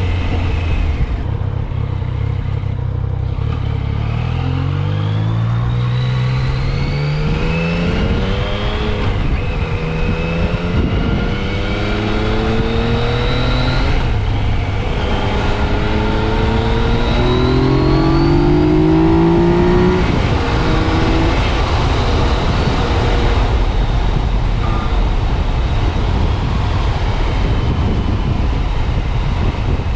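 2015 Yamaha FJ-09 Tracer's 847 cc three-cylinder engine pulling up through the gears: several rising sweeps in pitch, each dropping back at a shift, getting loudest a little past the middle. It then settles into a steady cruise under wind rush.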